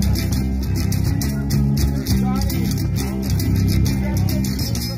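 Live rock band playing an instrumental passage between vocal lines, with guitar, bass guitar and a steady drum beat.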